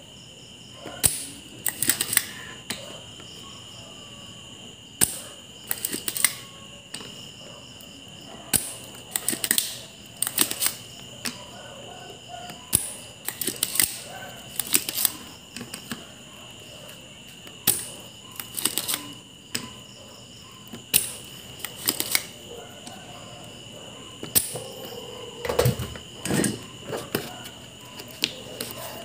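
Desoldering a relay from a circuit board: sharp clicks and snaps in small clusters every second or two, typical of a spring-loaded desoldering pump being cocked and fired, over a faint steady high whine.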